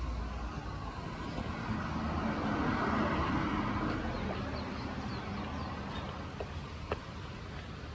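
A road vehicle passing by: an even rush of noise that swells to its loudest about three seconds in and slowly fades, over a steady low rumble.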